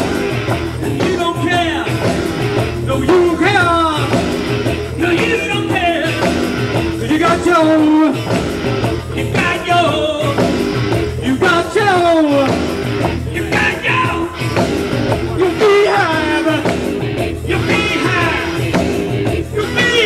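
Live rock band playing: guitar, keyboards and drums over a steady beat, with singing and repeated falling, sliding notes.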